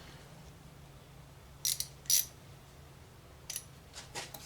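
Metal hand tools clinking: two sharp, ringing clinks close together about a second and a half in, then a few lighter clicks near the end, over a faint steady low hum.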